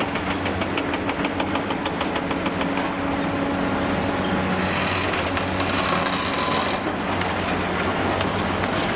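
Large demolition excavator at work: its diesel engine runs steadily under a fast, even clatter, with a hissing whine for about two seconds around the middle.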